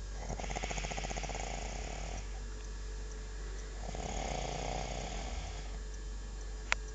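A man snoring: two drawn-out snores of about two seconds each, with a rapid flutter and a pause between them. A single sharp click near the end.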